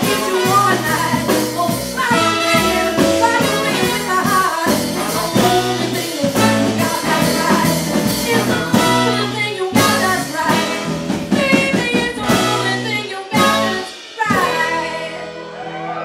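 Live jazz-blues band of piano, upright bass and drums playing the closing bars of a song, with sharp accented hits. Near the end the band lands on a final chord that rings out and fades.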